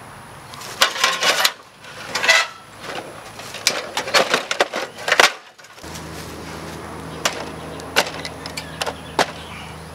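Shovel blade scraping and clanking against an Xbox 360's sheet-metal chassis in a rapid run of knocks and scrapes. After a cut, a few separate knocks follow over a steady low hum.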